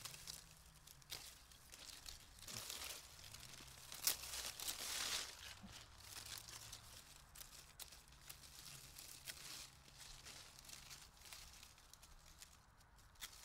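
Bypass secateurs snipping through hellebore leaf stalks, several sharp clicks with the loudest about four seconds in, along with the rustle and crumple of the cut leaves being pulled out of the clump.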